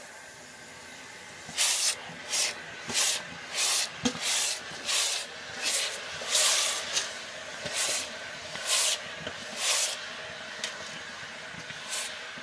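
Red-hot steel hammerhead quenched in a bucket of water to harden it, hissing steadily. Repeated louder surges of sizzling, about one or two a second, come as it is worked in the water, thinning out near the end.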